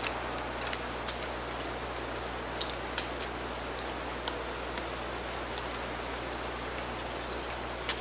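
Black-backed woodpecker pecking at tree bark: scattered, irregular sharp taps, one every half second to second or so, over a steady hiss.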